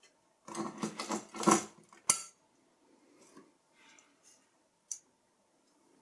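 Metal CPU heatsink of an Apple Mac Pro 1,1 being worked loose and lifted off the motherboard: about a second of scraping and rattling metal, then one sharp click, and a small tick later on.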